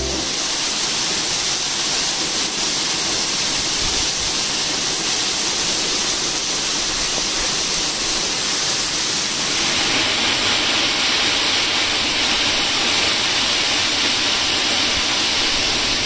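Urami-ga-taki waterfall running heavy with extra water from recent rain: a steady, dense rush of falling water and spray. About ten seconds in it turns brighter and hissier.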